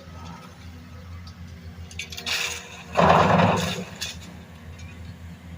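Building demolition: a short crash of debris, then a louder one lasting about a second, over a steady low hum of machinery.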